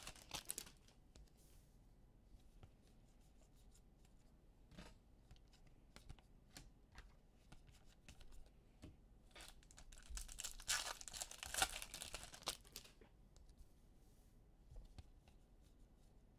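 Foil baseball-card pack wrapper crinkling and tearing as it is opened. Faint clicks of cards being handled follow, with another spell of crinkling and rustling about ten seconds in.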